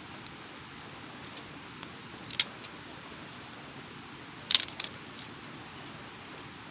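A few short, sharp clicks over steady background hiss: a single loud one, then a quick cluster of two or three about two seconds later.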